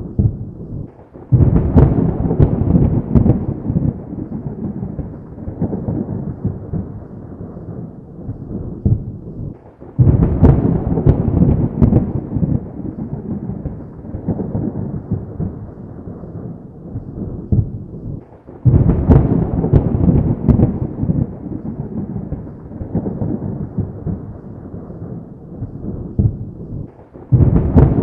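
Thunder: three claps about nine seconds apart, each a sudden crack followed by a rumble that fades over several seconds. A fourth clap starts near the end.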